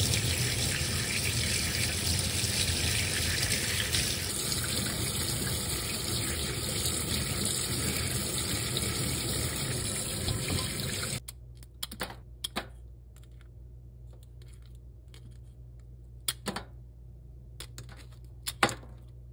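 Kitchen tap running steadily over flower crabs being rinsed by hand in a stainless steel sink; the water stops suddenly about eleven seconds in. Then kitchen scissors snip through the crabs' leg-tip shells, several short sharp clicks.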